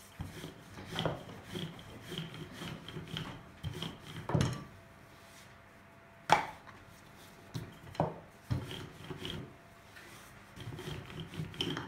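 Wooden rolling pin rolling pastry dough over a floured wooden board: a run of soft rubbing strokes and light knocks, with a few sharp wooden knocks, the loudest about six seconds in, while the pastry sheet is lifted and turned.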